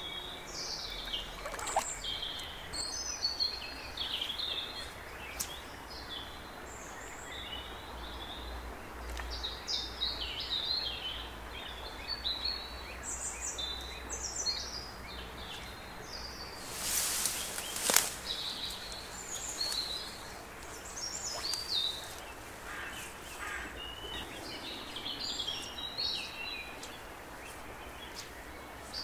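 Songbirds singing and chirping in many short phrases over a steady faint background hiss and low rumble, with a brief rush of noise ending in a sharp click about two-thirds of the way through.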